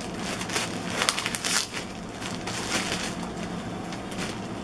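Thin plastic bag crinkling and crackling as a packaged pillowcase is handled and opened, busiest in the first second and a half, then lighter.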